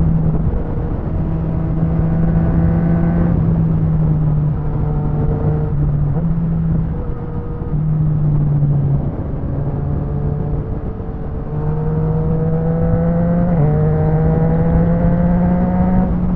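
Yamaha MT-09's inline-three engine with an aftermarket Akrapovic exhaust, under way at speed over wind rush: the revs climb briefly, ease, then climb steadily again with an upshift a few seconds before the end.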